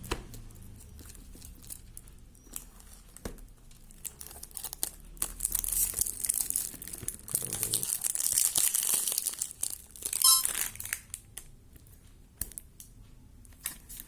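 Parcel packaging being torn open and crinkled by hand to break its seal: scattered rustles and clicks, a stretch of steady tearing in the middle, and the loudest quick rip about ten seconds in.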